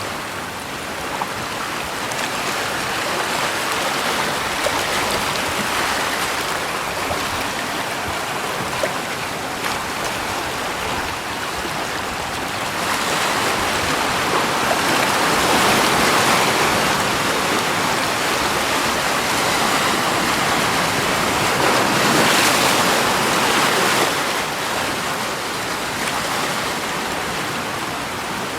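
Steady rush of flowing water, swelling louder for about ten seconds midway and then easing back.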